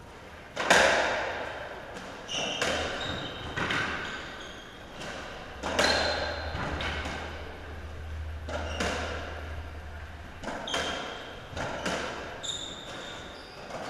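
Racketball rally in an enclosed court: the ball is struck by racquets and smacks off the walls about a dozen times at an uneven pace, each hit sharp and echoing.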